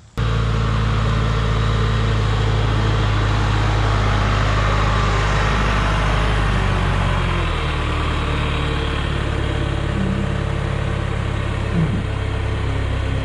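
John Deere 410 backhoe's diesel engine running steadily, its pitch dropping a little about halfway through.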